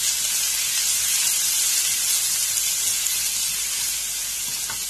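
Chopped green chillies and grated ginger sizzling in hot sesame oil in a nonstick frying pan: a steady frying hiss, a little louder in the first half.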